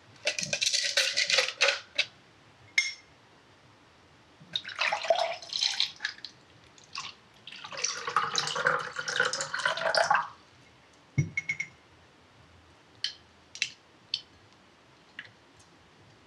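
A dry gelatin sheet crackling as it is crumpled into a glass. Then water is poured into the glass from a bottle, splashing for a few seconds. A single sharp knock comes about eleven seconds in, followed by a few faint ticks.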